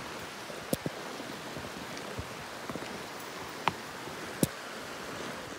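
Mountain creek rushing steadily over rocks, a constant watery hiss. A few sharp knocks cut through it, two near the start and two louder ones past the middle.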